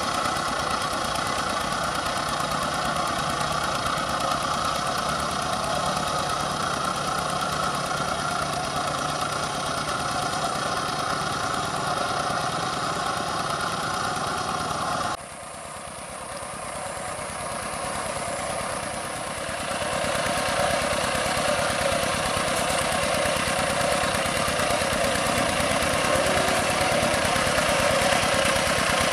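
Two-wheel hand tractor's single-cylinder diesel engine running steadily while working a paddy field. About 15 seconds in the sound cuts abruptly to another hand tractor, quieter at first and growing louder as it approaches.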